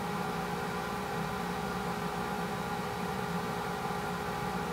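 Steady machine hum with hiss and several constant whining tones, unchanging throughout.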